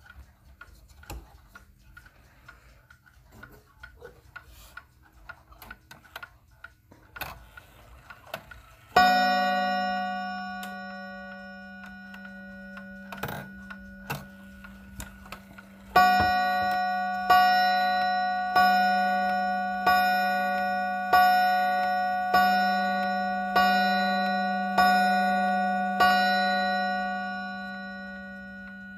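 Lindin 31-day wall clock ticking softly, then its hammer strikes the gong once about nine seconds in. Some seven seconds later it strikes nine times, about one blow every 1.3 seconds: striking nine o'clock, each ring dying away slowly.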